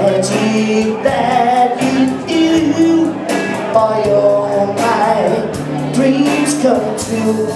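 A live band playing a song, with a singer over sustained low bass notes and a sharp, steady beat.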